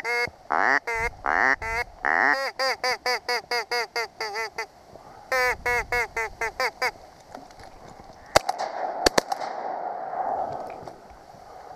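A hunter's duck call blown in a quacking sequence: a few long quacks, then two runs of quick, evenly spaced quacks that stop about seven seconds in. A few sharp clicks and a rustling noise follow.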